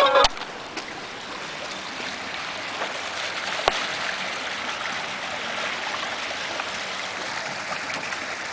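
River water rushing and splashing around a stone bridge pier, a steady rushing hiss, with a single sharp click about three and a half seconds in.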